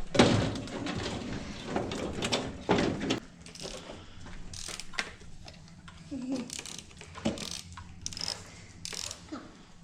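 Hand tools and metal parts being worked: a run of irregular clicks and clanks, busiest in the first few seconds, over a steady low hum.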